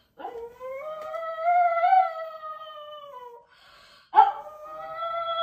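A pug howling: one long howl that rises and then falls, then a second howl that starts abruptly about four seconds in and holds steady.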